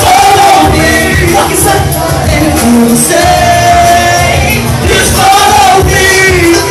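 Loud live music with a singer holding long sung notes over a pounding beat, heard from among the audience.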